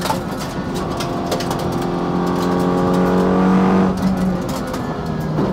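Audi RS3 LMS TCR race car's turbocharged four-cylinder engine pulling hard, its note climbing steadily for about four seconds, then dropping sharply before pulling again at a lower pitch. Sharp crackles run through it.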